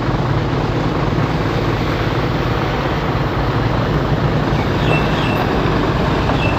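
Hino 10-wheeler dump truck's diesel engine idling steadily, an even low hum.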